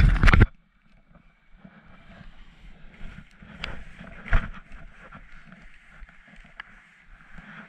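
A brief loud rubbing against the camera at the start, then skis sliding and scraping through chopped-up snow as a soft, even hiss, with a couple of sharper knocks around four seconds in.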